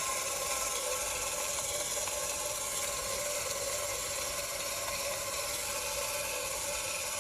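Small motor and gear train of a mechanical toy dog whirring steadily at an even level, with several steady tones mixed through it.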